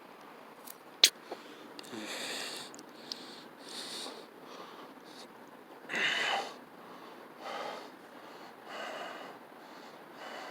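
A person's heavy, wheezy breaths after taking a cannabis dab: about six breathy exhales a second or two apart, the loudest about six seconds in. A sharp click comes about a second in.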